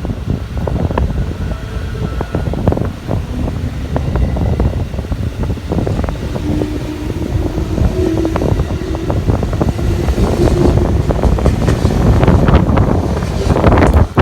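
Electric train running through the station, a steady rumble with many short clicks, with wind buffeting the microphone. A faint humming tone comes in around the middle, and the noise grows louder toward the end.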